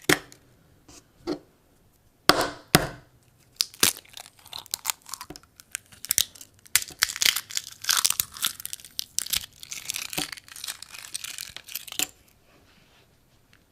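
Eggshell cracking and crunching: a few loud sharp cracks in the first three seconds, then a dense run of crackling and crumbling shell that stops abruptly near the end.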